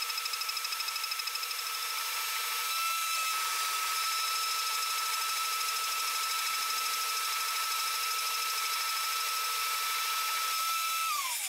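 High-speed CNC spindle driving a single-flute endmill through 5083 aluminium (AlMg4.5Mn) in a trochoidal milling pass: a steady high whine over a hissing cutting noise. The noise pulses rapidly in the first second or so, then holds steady, and near the end the whine falls in pitch.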